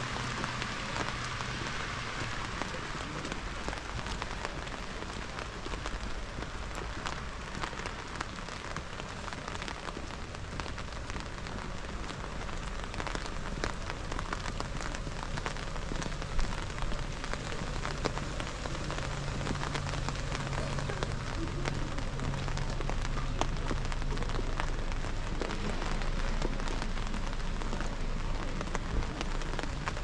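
Steady rain falling and hitting surfaces, with many separate drop ticks. A low hum comes in for a few seconds past the middle.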